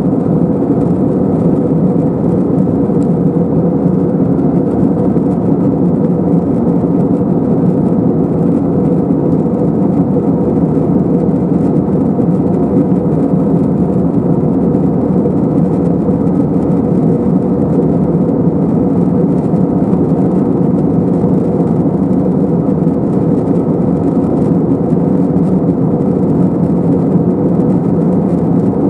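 Steady cabin noise inside an Airbus A321-212 in flight: a constant low rush of its CFM56 engines and the airflow over the fuselage, heard from a window seat over the wing.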